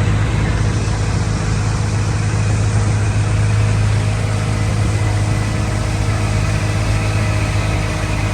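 Small boat's outboard motor running at a steady speed, with an even, unchanging engine hum.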